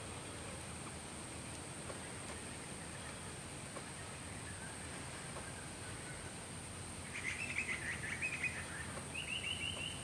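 Young butcherbird giving a short burst of rapid chattering calls, then a quicker run of higher, evenly repeated notes near the end. A steady high hiss runs underneath.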